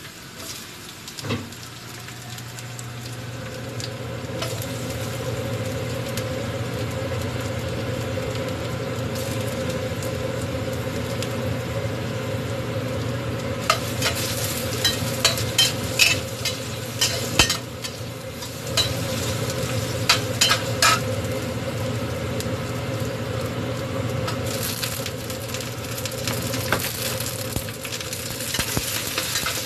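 Food sizzling as it fries in a pan over a steady low hum. Around the middle comes a run of sharp clicks and scrapes as a utensil stirs against the pan.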